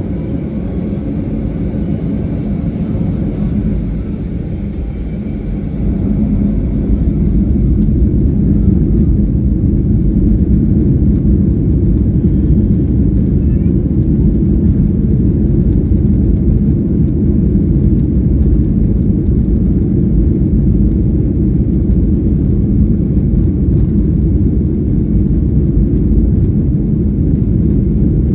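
Airliner's jet engines and rumble during the takeoff, a steady low roar that grows louder about six seconds in as the thrust builds, then holds.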